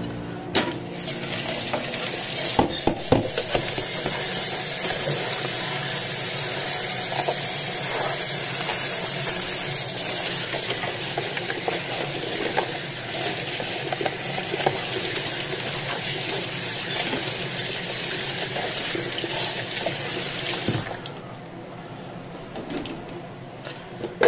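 Kitchen tap running into a stainless steel sink while a plastic colander and dishes are rinsed under it, with scattered clinks of dishware. The water stops about three quarters of the way through, leaving quieter handling of dishes.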